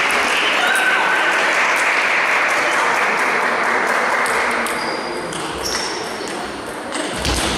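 Table tennis ball clicking sharply off bats and table, many times, over a loud steady crowd noise in a large hall that eases about halfway through.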